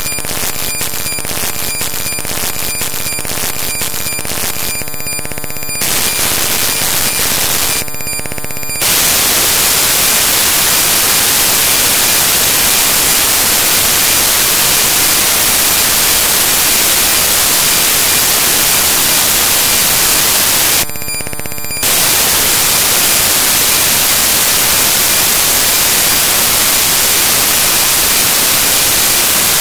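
Loud digital static from corrupted audio. A harsh buzz with steady tones and rapid crackle runs for the first several seconds, then gives way to a steady loud hiss, and the buzz briefly returns about three-quarters of the way through.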